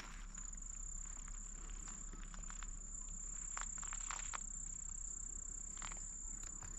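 Insect chorus at dusk: a steady, high-pitched trill, with a few faint ticks scattered through it.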